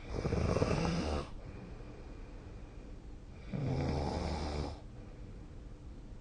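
A person snoring in sleep: two snores, each just over a second long, about three and a half seconds apart.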